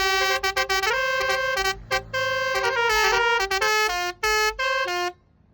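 Basuri telolet-style musical horn playing a tune of short, stepped notes, one after another, that stops abruptly about five seconds in.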